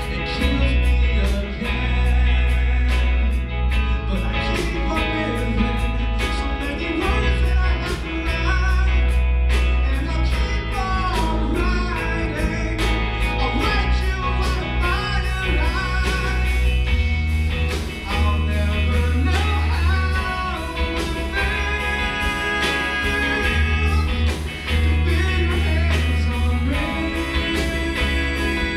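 Live blues-rock band playing: electric guitars, bass guitar and drum kit with a steady beat, and a lead vocal over the top through a handheld microphone.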